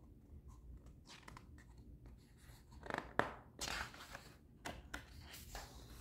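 Paper pages of a large picture book being handled and turned: a few faint rustles and crinkles, bunched in the second half.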